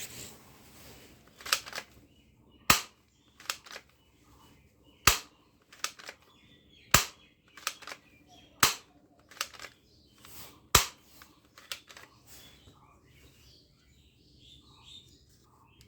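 Toy pump-action shotgun being racked and fired: five loud, sharp plastic snaps about two seconds apart, with lighter clicks of the pump and mechanism in between.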